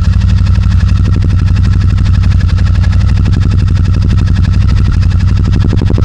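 Royal Enfield Super Meteor 650's parallel-twin engine idling steadily through a newly fitted Rhino Racing aftermarket exhaust, a loud, even pulsing note.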